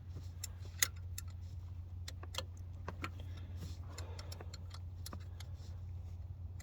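Scattered sharp metallic clicks and ticks of a wrench working a thermostat-housing bolt loose in a car's engine bay, irregular, one or two a second.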